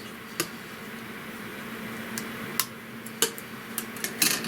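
Light, scattered clicks and taps of plastic model-kit parts being handled and fitted together, about half a dozen spread over the few seconds, over a faint steady hum.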